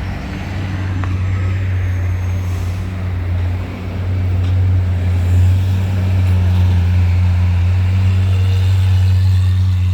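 Supercar engine idling steadily, a deep even hum that grows a little louder about halfway through.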